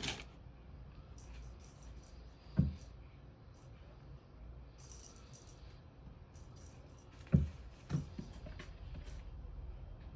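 Cats playing with a cat-teaser toy: light jingling and rattling of the toy in short clusters, with a soft thud a little over two seconds in and two more close together later on.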